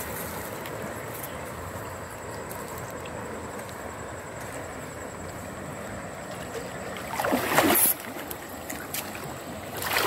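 Steady rush of flowing river water, with a short, louder splash about seven seconds in.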